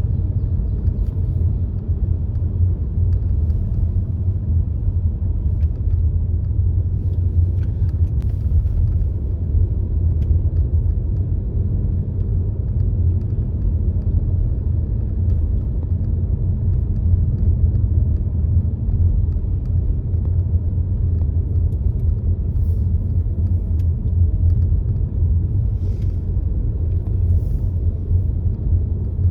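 Car driving along a road: a steady low rumble of engine and tyre noise, with a few faint ticks scattered through it.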